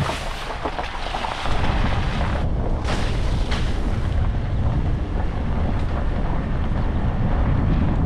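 Truck driving on a rough dirt road: a steady low rumble of engine and tyres with wind buffeting the microphone, growing heavier about a second and a half in.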